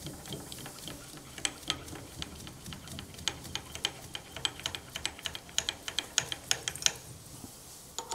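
Irregular light mechanical clicks and ticks, a few a second and thickest in the middle, over a faint low hum.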